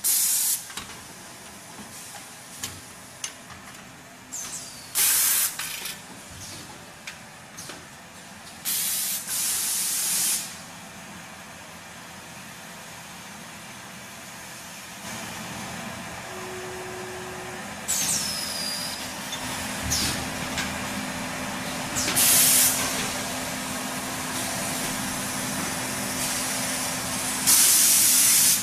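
Tissue-paper converting machines running, with about five loud bursts of compressed-air hiss from the pneumatics, the longest about a second and a half. Between the bursts come scattered clicks over a steady machine hum that grows louder about halfway through.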